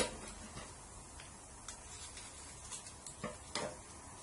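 A few scattered light clicks and taps, the sharpest about three and a half seconds in: a small packet of boric acid being handled and opened.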